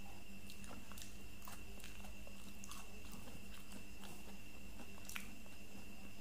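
Soft eating sounds of durian: scattered small clicks and smacks as fingers pull the soft flesh and she chews, over a steady faint background hum with a thin high whine.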